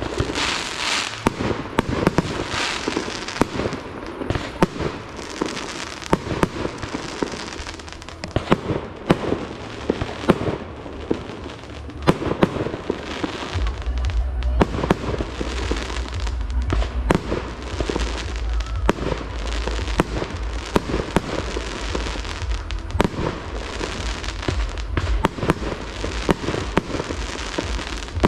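Fireworks display: a continuous hiss and crackle of fountains and rising comets, broken by frequent sharp bangs of small aerial bursts.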